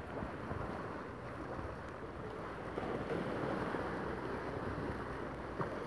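Small sea waves washing onto the shore in a steady wash, with wind on the microphone; the wash grows a little louder about three seconds in.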